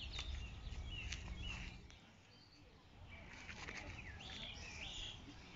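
Small birds singing and chirping, several short rising and falling calls throughout. A low rumble underneath stops about two seconds in.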